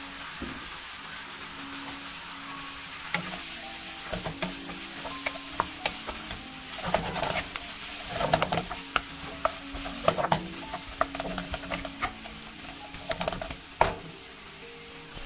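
Wild rice stem (makomotake) pieces sizzling in oil and sauce in a nonstick frying pan while a wooden spatula stirs and turns them. The spatula scrapes and taps against the pan, more and more often in the second half.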